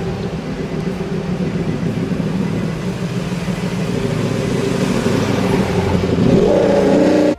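Ducati Desmosedici RR's 989 cc four-stroke V4 engine running, revving up near the end and then cutting off suddenly.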